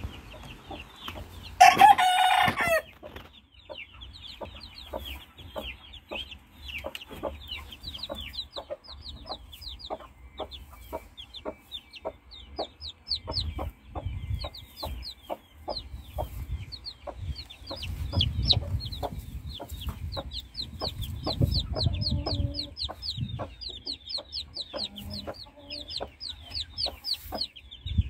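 Newly hatched chicks peeping steadily, one short high cheep after another, with a mother hen clucking low now and then. About two seconds in, a loud, drawn-out chicken call lasts about a second.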